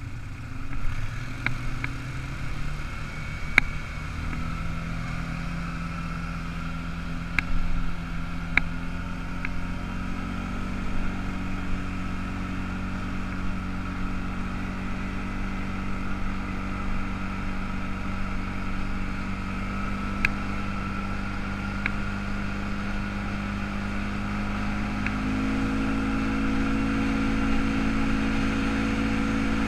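ATV engine running under way on a gravel road, its pitch stepping up about four seconds in and again near the end as it speeds up. A few sharp clicks come in the first ten seconds.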